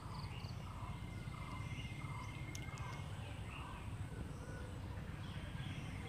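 Faint background ambience: a steady insect trill, with scattered short chirps and a low rumble beneath.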